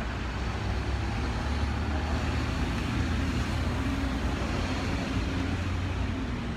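Road traffic dominated by a large vehicle's engine running close by, a steady low drone that grows a little louder in the middle and eases off near the end.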